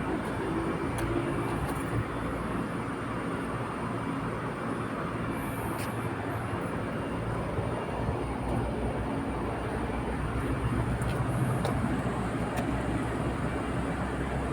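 Steady rumble and rushing noise of a moving vehicle, with a few faint clicks.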